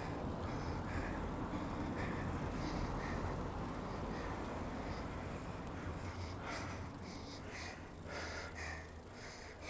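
A cyclist breathing hard, one puff about every second, after a tough hill climb in a high gear. Under it is a steady wind and road rumble on the clip-on wireless mic at riding speed.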